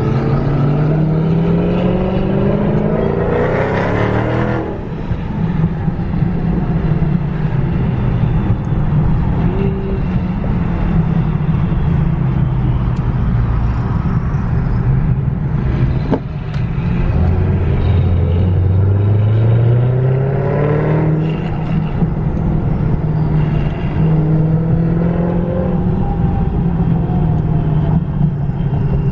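Car engines accelerating over a steady low engine rumble. The pitch rises as they rev up, three times: at the start, again past the middle, and once more near the end.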